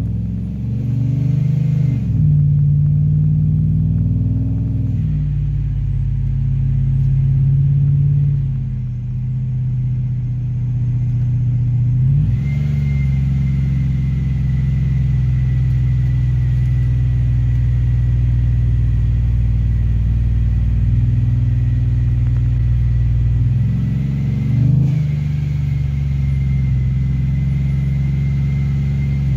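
Supercharged Ram pickup's Hemi V8 rumbling at low speed, heard inside the cab. The engine note swings up briefly a few times as the truck pulls away and changes gear. A faint steady high whine joins about midway.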